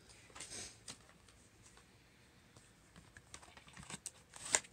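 Quiet handling of makeup packaging: scattered small clicks and taps as a boxed cosmetics set is picked up and turned over in the hands. The clicks get busier in the last second or so, with one sharper click near the end.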